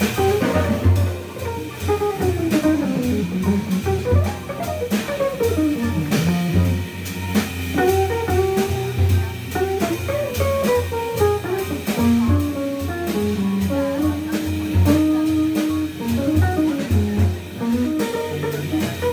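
Live jazz organ trio playing a standard: hollow-body electric guitar, organ and drum kit. A single-note melody line winds up and down over a pulsing low bass line, with steady cymbal strokes on top.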